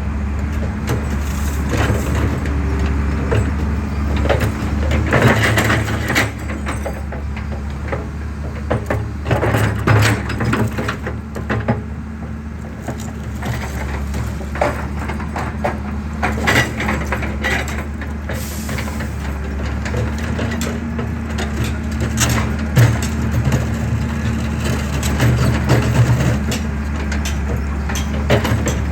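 Excavator's diesel engine running steadily under load while concrete is crushed, with irregular cracking and crunching of breaking concrete throughout.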